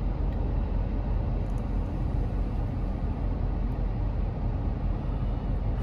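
Steady rushing of a car's air-conditioning fan blowing hard through the vents, over the low rumble of the running car. The fan is set too high, giving too much breeze in the cabin.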